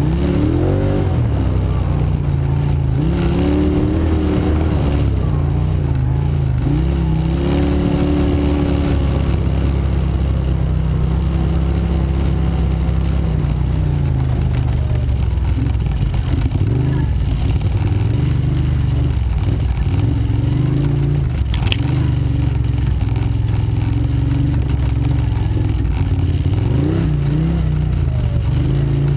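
Quad (ATV) engine revving up and down as it rides along a rough dirt trail. A single sharp knock comes about two-thirds of the way through.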